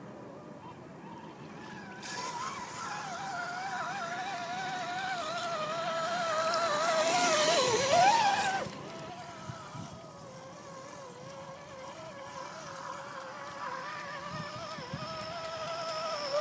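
Electric motor and gear whine of an Axial SCX10 Deadbolt RC crawler driving, its pitch wavering with the throttle. It swells louder for about the first eight seconds, then drops off suddenly and goes on quieter.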